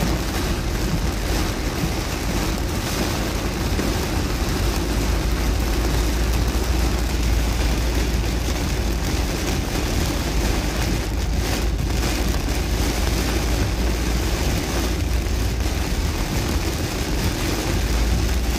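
Heavy rain pelting a car's roof and windshield, heard from inside the car, as a steady dense hiss over a low rumble from the car.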